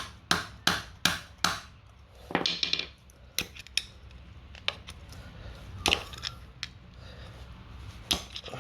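Sharp blows on a brass water meter body, smashing out the plastic left inside: a quick run of five strikes about three a second, then a short rattle and scattered knocks and clicks.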